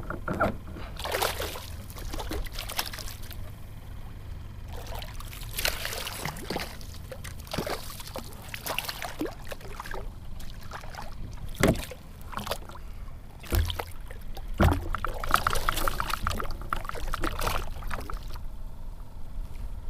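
Water splashing and knocking against a kayak's side as a small hooked jack crevalle is landed by hand: irregular splashes and thuds over a steady low rumble.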